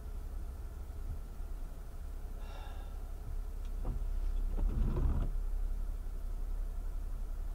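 Steady low hum inside a 2010 Toyota Camry's cabin as it sits stopped in the rain, with a short faint whine about two and a half seconds in. About two-thirds of the way through, the windshield wipers make one brief swishing sweep across the wet glass, the loudest sound here.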